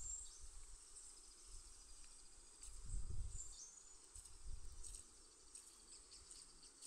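Insects chirring in a steady high-pitched drone, with a few low rumbles on the microphone about halfway through.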